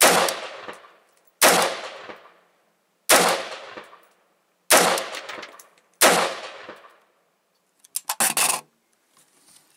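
Stag Arms AR-15 rifle in .223 firing five single shots in slow, aimed succession, about one and a half seconds apart, each shot ringing out for about a second. A brief clatter of clicks follows near the end.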